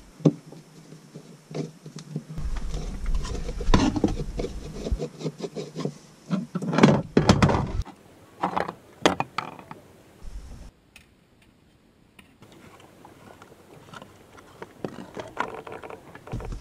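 Handling noise as a rigid plastic storm window is fitted into a boat's port light: scattered knocks, clicks and rubbing of the plastic sheet against the frame.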